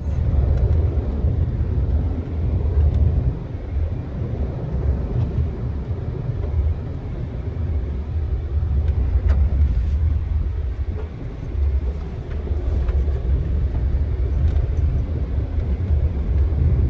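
A 2020 Subaru Crosstrek on aired-down all-terrain tyres driving a gravel dirt trail, heard from inside the cabin: a steady low rumble of tyres and running gear on the rough surface. Now and then a sharp tick of gravel striking the car cuts through.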